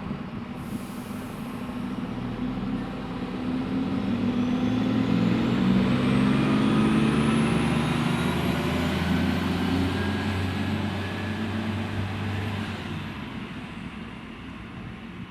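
Diesel train engine running as the train moves through the station, growing louder to a peak mid-way and then fading, with a high whine rising in pitch. A short hiss of air about a second in.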